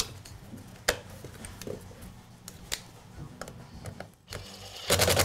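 Sharp, scattered clicks and taps of small plastic and metal saw-motor parts being handled as the wire cover is refitted, with a louder half-second rustle near the end.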